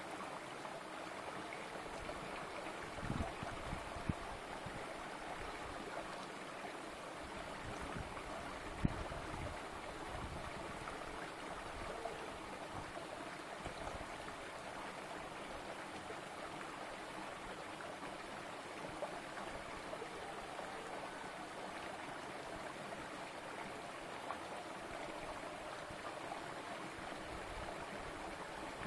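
Small stream running steadily over and between rocks, a continuous shallow burbling. A few soft low bumps come about three to four seconds in, and a single sharp click about nine seconds in.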